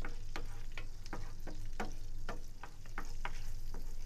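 Minced garlic sautéing in hot butter and oil in a non-stick frying pan, stirred with a wooden spoon: a steady sizzle broken by frequent sharp crackles.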